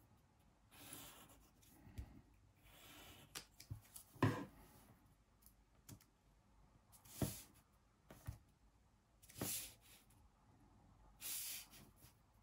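Pencil scratching on paper in short strokes, about one every two seconds, tracing around a small wooden shape, with a few light knocks on the desk; the sharpest knock comes about a third of the way in.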